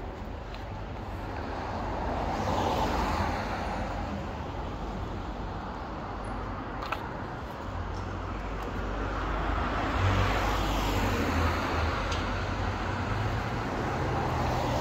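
Street traffic: cars passing by over a steady low rumble, one swelling up and fading about three seconds in and more passing from about ten seconds in.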